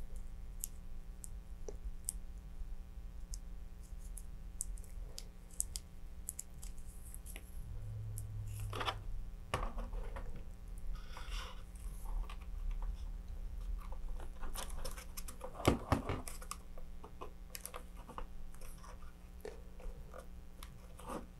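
Small handling noises of gloved hands working epoxy clay with a wooden dowel on a cutting mat: scattered soft clicks and rustles, with one louder knock about sixteen seconds in, over a faint low hum.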